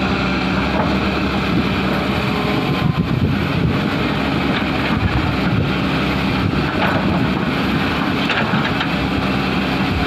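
Hyundai crawler excavator's diesel engine running steadily as the machine turns on its tracks.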